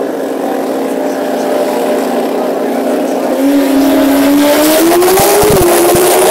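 Drag racing motorcycle engine running on a steady note, then getting louder about three seconds in, its pitch climbing as it accelerates.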